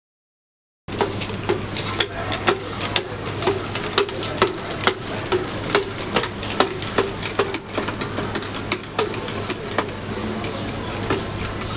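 A steady low mechanical hum with many sharp clicks and knocks over it, starting about a second in.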